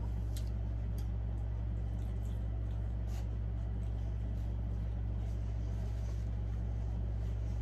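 A steady low hum, with a few faint soft clicks and smacks from someone eating and chewing food between bites.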